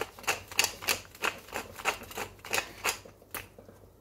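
Tall wooden pepper mill grinding black peppercorns, a rhythmic dry crunch at about three twists a second that stops about three seconds in, with one last crunch just after.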